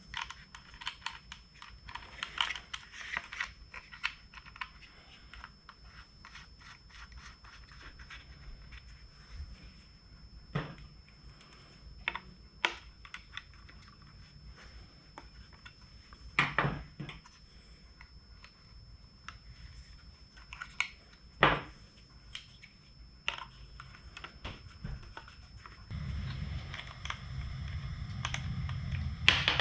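Small clicks, scrapes and taps of plastic motorcycle cornering-light parts being handled while an adjuster screw is threaded in by hand, with a few sharper clicks along the way. A low steady hum comes in near the end.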